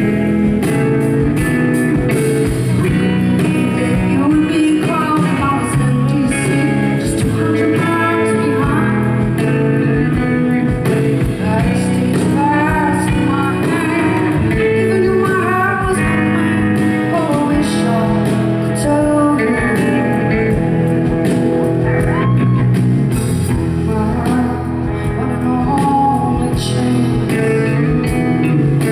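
Live rock band music: a woman singing into the microphone over electric guitar played through an amplifier.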